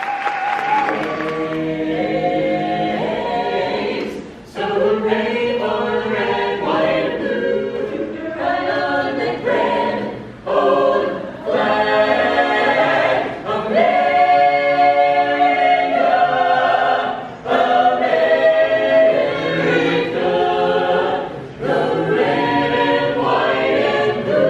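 Mixed a cappella choir singing in harmony, several voices without instruments, in phrases with short breaths between them.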